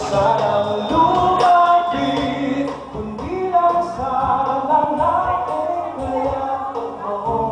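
A pop ballad: a karaoke backing track played through a PA, with a man singing live over it into a handheld microphone.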